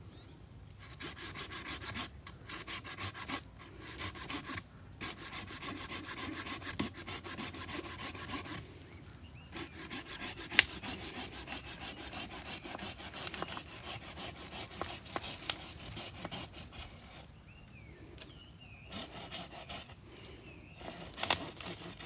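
Hand pruning saw cutting back and forth through woody roots at the base of a wild Chinese sweet plum (Sageretia) shrub being dug out for bonsai, in two long runs of fast strokes with short pauses. There is a single sharp crack about halfway through, and the sawing tails off near the end.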